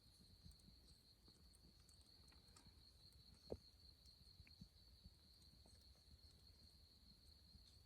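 Near silence with a faint, steady high trill of crickets, and one soft tap about three and a half seconds in.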